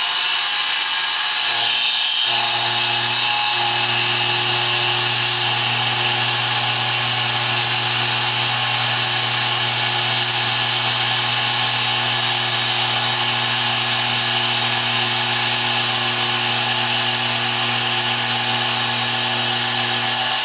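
Mini mill spindle running under load as an end mill takes a conventional-milling side cut along a metal bar in a vise: a steady hiss of cutting over a constant motor hum. The low hum grows stronger about two seconds in as the cut takes hold.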